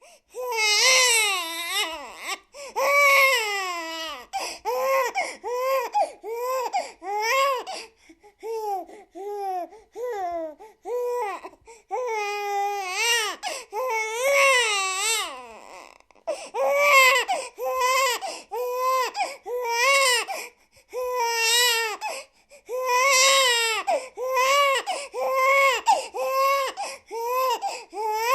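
A baby crying in repeated high-pitched wails, each about a second long, rising and falling in pitch with short breaths between them.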